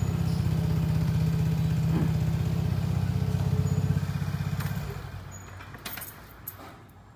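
Piaggio scooter engine idling with an even pulse, running on a newly fitted replacement battery after the old one went flat. About five seconds in it stops, and a few clicks and knocks follow.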